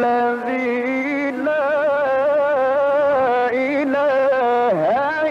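A male Quran reciter chanting in a melodic, drawn-out style, holding long ornamented notes that waver and slide in pitch, with a quick dip and rise in pitch near the end.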